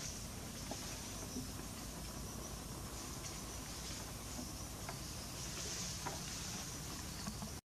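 Faint forest ambience: a high insect drone that swells and fades now and then, with a few small scattered clicks.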